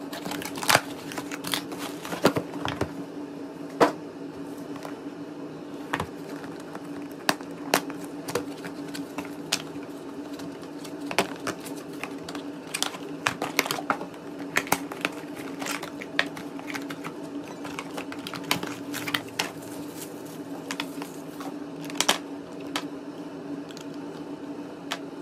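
Packaging being handled while a new portable nail drill is unboxed: scissors cutting the tape on a cardboard shipping box, then cardboard flaps and inner packing opened and the drill's control unit and cord handled, giving many irregular sharp clicks, taps and rustles. A steady low hum sits underneath.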